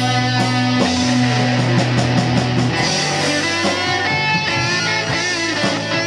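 Live rock band playing a song, electric guitars to the fore over bass, drums and keyboard.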